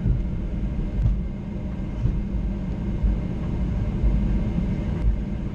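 Steady low rumble inside the cabin of a Boeing 737-800 rolling on the ground after landing, with a few light knocks about a second in and again near the end.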